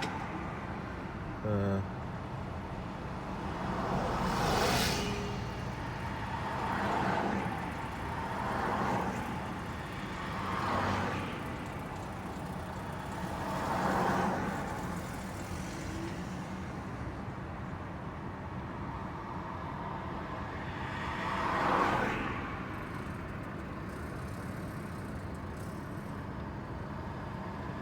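Road traffic: cars passing one after another over a steady traffic hum, each swelling up and fading away, about five in the first fifteen seconds and one louder pass a little past the two-thirds mark.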